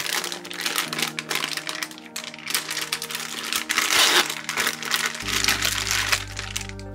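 Clear plastic bag crinkling loudly as it is handled and pulled open, stopping about six seconds in. Background music plays underneath.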